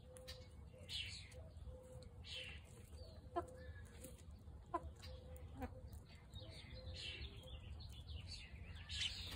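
Chickens clucking, with short chirping calls repeating throughout and a few sharper calls around the middle.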